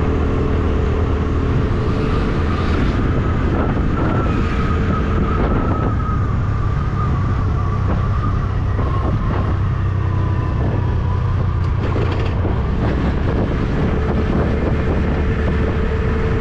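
Motorcycle engine running steadily while riding, its note drifting slightly in pitch, under a heavy rumble of wind on the microphone.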